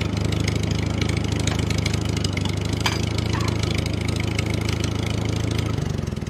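Engine idling steadily with a fast, even chugging, tailing off near the end.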